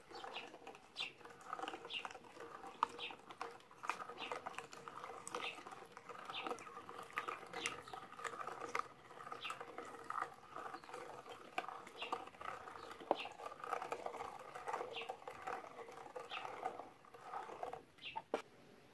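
Hand-cranked metal mincer being turned as it crushes unripe grapes: irregular crunching and clicking over a steady grinding rub, which stops near the end.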